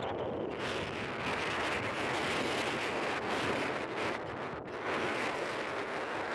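Steady rushing of wind against the microphone, easing briefly a little past halfway.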